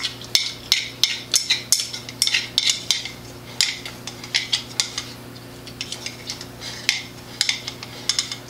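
Chopsticks clicking and scraping against a ceramic rice bowl as rice is shovelled from the bowl into the mouth: quick, irregular clinks several times a second, fewer around the middle.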